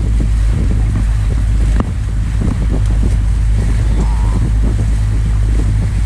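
Wind buffeting the camera's microphone aboard a pontoon boat: a steady low rumble with gusty rushes, and a single sharp click just under two seconds in.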